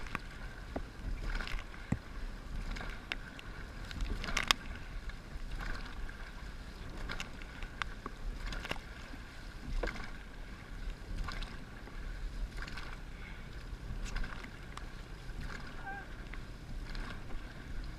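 Dragon boat moving on the water, with irregular paddle splashes and knocks over a steady wash of water, and wind rumbling on the microphone.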